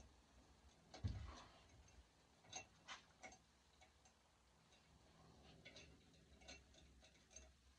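Faint, scattered clicks and a soft thump about a second in, from a raccoon being skinned by hand on a hanging gambrel as the hide is pulled down off the carcass.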